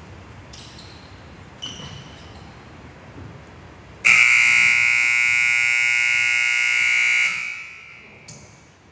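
Gym scoreboard buzzer sounding one steady, harsh tone for about three seconds, starting about four seconds in, with a few faint knocks from the court before and after it.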